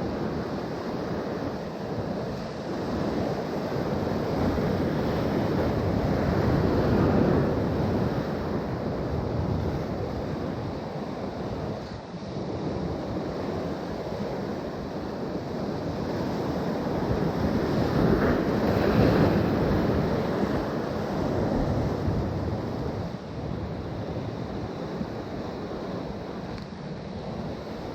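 Ocean waves washing in on the shore, swelling up twice, about twelve seconds apart, with wind buffeting the microphone.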